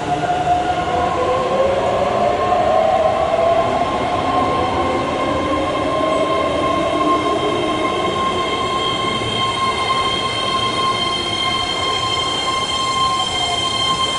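Keihan electric train moving through an underground station platform: the motors whine in gliding tones during the first half, while steady high-pitched wheel squeal builds and holds to the end.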